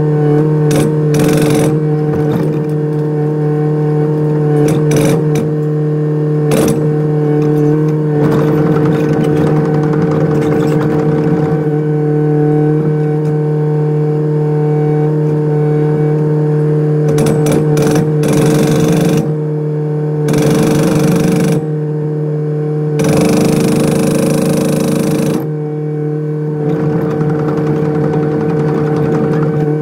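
Kubota mini excavator's diesel engine running with a steady hum, broken in the second half by three short spells of hydraulic breaker hammering, the longest about two and a half seconds.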